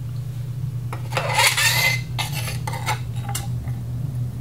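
A metal water-pump wear plate and its gasket being slid down an outboard's drive shaft and set onto the gear case. A scraping rattle comes about a second in, then a few light metallic clinks, over a steady low hum.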